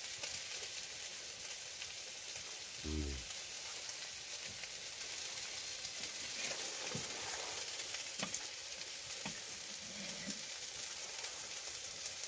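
Steak, bacon, onion and potato sizzling steadily in a frying pan, with small crackles of spitting fat. A brief hummed voice about three seconds in.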